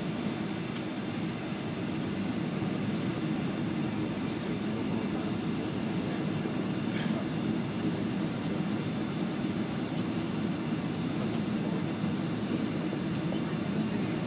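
Boeing 757 taxiing, heard inside the cabin: a steady low rumble of the engines at taxi power and the aircraft rolling, rising slightly about two seconds in.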